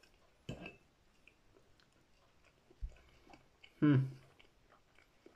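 A person quietly chewing a mouthful of pancake, with a few faint clicks and a low thump. About four seconds in comes one brief vocal sound from the eater.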